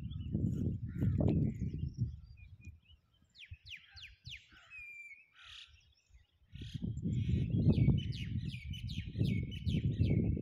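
Small birds chirping in quick runs of short, downward-sweeping notes, once in the middle and again near the end. Under them runs a loud, uneven low rumble that drops away for a few seconds in the middle and returns.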